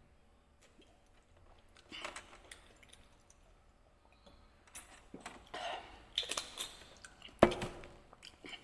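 A man drinking from a green glass bottle: soft gulping and mouth sounds, a cluster of them about two-thirds of the way in. Near the end comes one sharp knock, the loudest sound.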